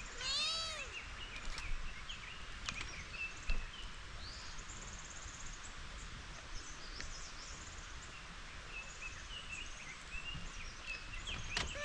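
A cat meows once, a short rising-and-falling call, about half a second in. It is followed by quiet rural outdoor ambience with scattered faint bird chirps.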